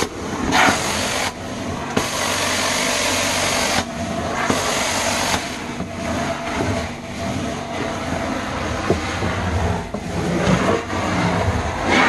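Vacuum cleaner running on carpet, its steady hiss shifting in level every few seconds as it moves. It is pre-vacuuming, pulling dry carpet powder out of the pile before steam cleaning.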